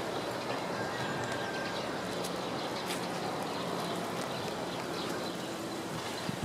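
Steady outdoor background noise with a faint low hum through the middle and a few faint ticks; no distinct event stands out.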